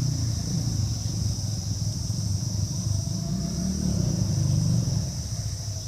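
A vehicle engine running, its low rumble rising and falling in pitch and swelling toward the end, over a steady high insect drone.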